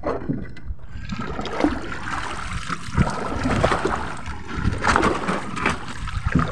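Water splashing and lapping around a small wooden fishing boat, with a few knocks on the boat, the sharpest about three seconds in.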